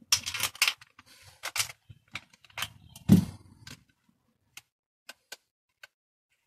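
Clicks and clatter of a plastic BMX pedal and hand tools being handled and worked on, with a louder knock about three seconds in, then a few sparse ticks.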